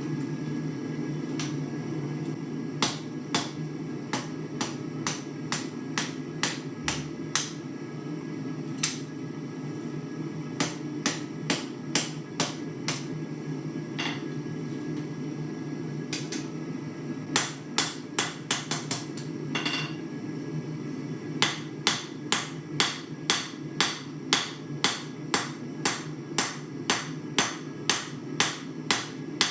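Hand hammer striking a hot steel bar, a former farrier's rasp, on an anvil: scattered blows at first, then a quick flurry, then an even run of about two blows a second, squaring and shaping the bar rather than drawing it out. A steady gas forge burner runs underneath.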